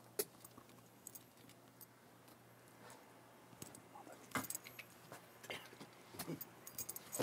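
A few faint, sharp clicks and taps scattered over quiet room tone: small handling noises as a person moves about, one near the start and several more in the second half.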